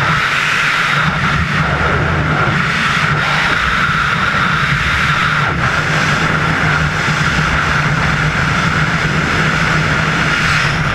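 Steady, loud rush of freefall wind buffeting a helmet-mounted action camera.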